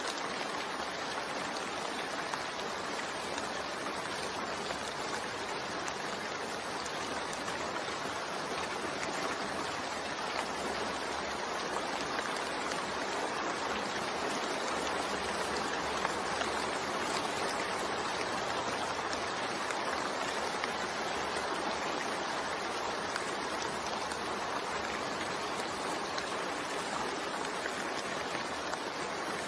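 Steady rain, an even unbroken hiss with no single drops or other sounds standing out.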